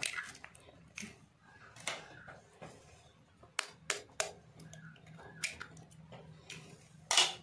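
Raw eggs being cracked into a steel mixing bowl of cornflour-coated chicken: a scattering of short sharp clicks and cracks of shell, the loudest near the end.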